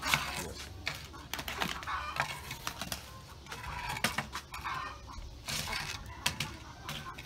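Metal loaf tins clinking and knocking against one another as they are picked up and loaded into a clay dome bread oven: irregular sharp clinks.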